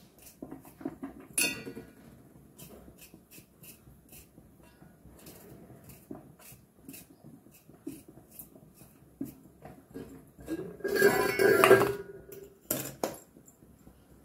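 Faint, irregular clicks of a small knife cutting vegetables held in the hand over a stainless steel bowl. About eleven seconds in comes a loud clatter of steel utensils with a metallic ring, lasting about a second and a half, followed by a couple of sharp knocks.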